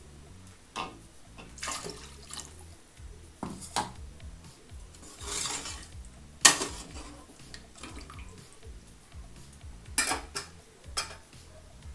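A slotted metal spoon stirring watery masala gravy in a steel pot, with irregular clinks and knocks of metal on metal and some sloshing. The loudest knocks come about six and a half seconds in and again around ten seconds.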